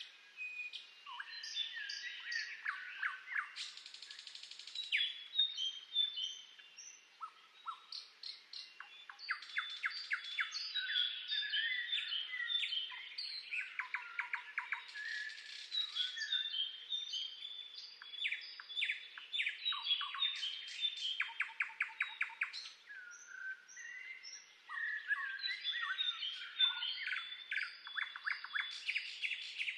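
Several songbirds singing and chirping at once: a dense chorus of quick trills, rapid repeated notes and short whistles, with no let-up.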